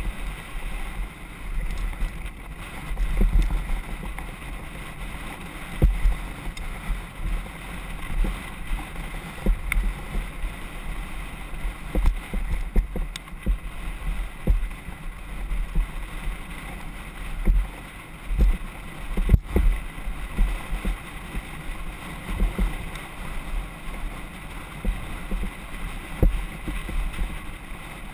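Mountain bike riding fast down a gravel trail: tyres rolling over loose stones, with irregular thumps and clicks as the bike rattles over bumps, and wind buffeting the microphone.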